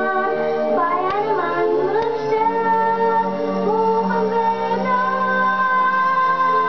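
Film song: a high singing voice over instrumental backing. The voice glides in pitch about a second in, then holds a long note.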